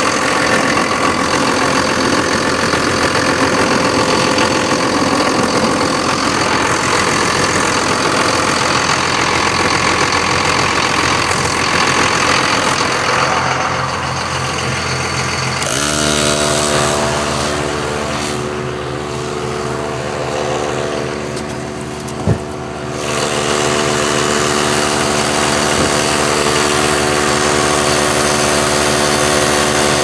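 Dodge pickup's engine running under the open hood, noisy at first, then about halfway through settling into a steady, even idle hum. One sharp click a little past the middle of the hum.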